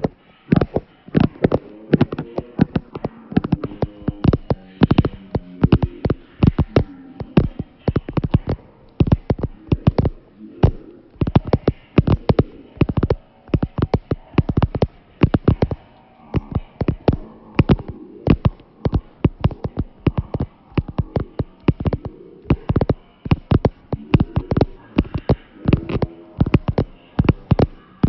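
Sharp taps or clicks in a long irregular run, roughly two to four a second, with a faint wavering low sound between them.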